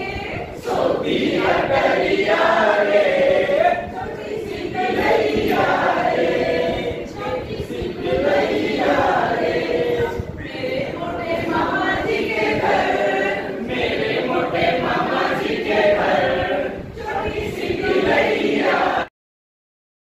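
A group of men and women singing a song together in chorus. The singing cuts off suddenly near the end.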